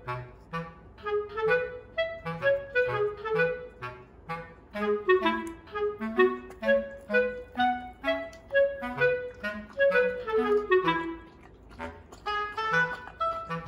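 Background music: a light, bouncy tune with a clarinet-like woodwind lead over a steady bass line.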